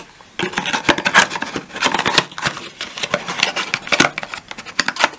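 Packaging being handled by hand: a dense, irregular run of crackles and taps starting about half a second in.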